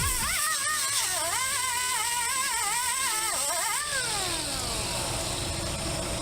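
Angle grinder running with its pitch wavering up and down under changing load. About four seconds in it is switched off and winds down in a long falling whine.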